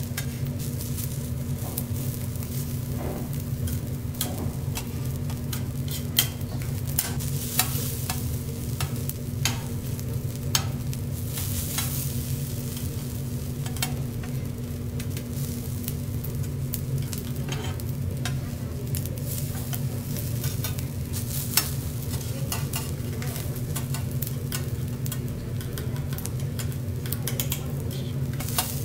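Fried rice sizzling on a hot steel teppanyaki griddle while a metal spatula and fork scrape and tap on the plate, giving frequent sharp clicks over a steady low hum.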